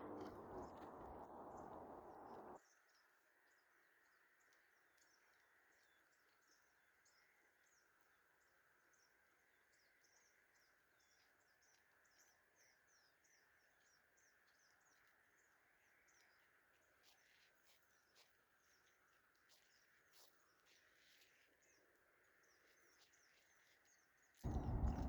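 Near silence with faint, scattered high chirps. A low outdoor hiss in the first two seconds or so cuts off abruptly, and louder sound returns just before the end.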